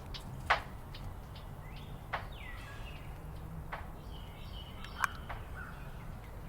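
A bird calling with short, sharp, falling notes, repeated about every one and a half seconds over a low steady background rumble.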